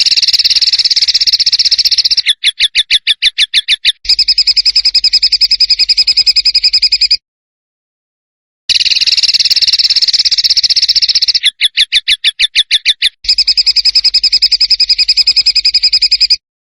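A bird's rough, harsh rattling song phrase, played as a masteran training track: a fast buzzy trill, a stretch of slower separate pulses, then the fast trill again. The same phrase repeats after a short pause.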